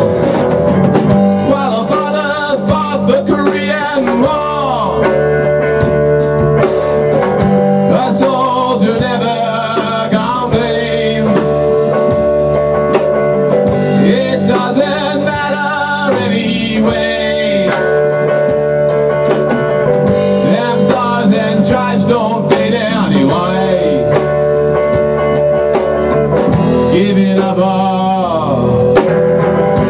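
Small rock band playing live in a rehearsal room: electric guitar, electric bass and a drum kit keeping a steady beat.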